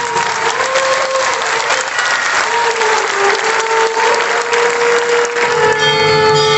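Audience applauding, with music carrying a wavering held tone underneath. The clapping dies away near the end as music with bell-like tones comes in.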